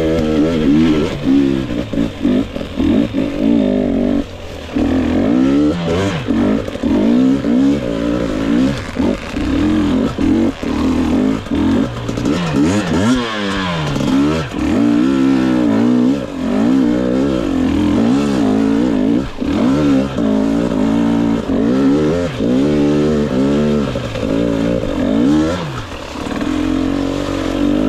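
2022 GasGas EX 250 two-stroke dirt-bike engine revving up and down as the bike is ridden, the pitch rising and falling every second or two with the throttle, and a deep drop and climb about halfway through.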